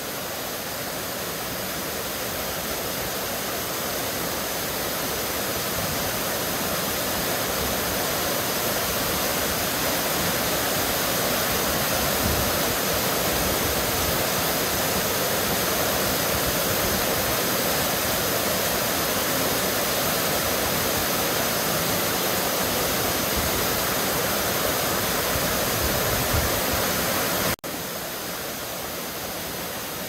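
Waterfalls and a rocky stream rushing in a steady roar of water that grows louder over the first ten seconds or so. Near the end it cuts out for an instant and comes back quieter.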